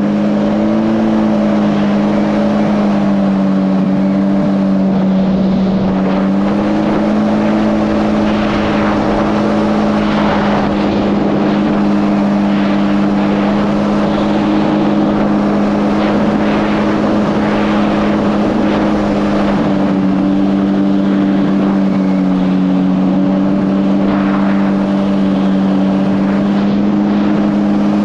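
Supercharged Yamaha GP1800R SVHO jet ski's four-cylinder engine running hard at steady high speed, its pitch stepping up at the start and dipping briefly twice, over a continuous rush of water and spray.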